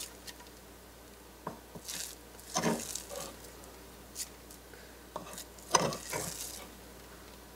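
Ground cooked beef and lentil mixture being scraped out of a wooden mortar into a bowl: a handful of soft scrapes and light knocks, scattered and uneven.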